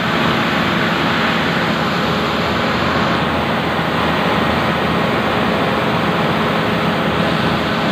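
Rice milling machines running together: a loud, steady mechanical drone with a constant low hum and an even rushing noise.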